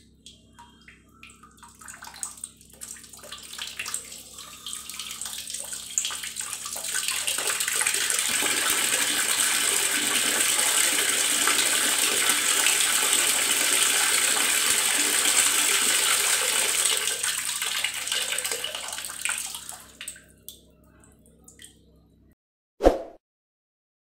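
Water running from a chrome wall-mounted bib tap: a few small clicks as the handle turns, then the flow builds over several seconds into a steady rushing splash and later fades away as the tap is turned back off. A single knock near the end.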